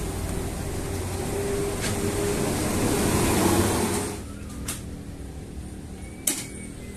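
A bus engine running with a steady low hum that drops to a quieter level about four seconds in. A few sharp clicks cut across it, the loudest near the end.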